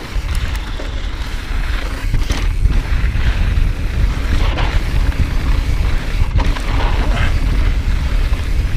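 Wind buffeting the mountain bike's action-camera microphone as a heavy rumble, over the rush of 29er tyres rolling fast on dry dirt. A few brief knocks and rattles come from the bike over trail bumps.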